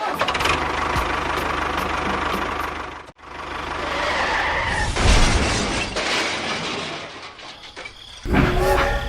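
Dense mechanical running noise, like a small engine or motor, with a fine low pulsing; it cuts off abruptly about three seconds in, resumes, peaks around five seconds and fades before a new sound starts near the end.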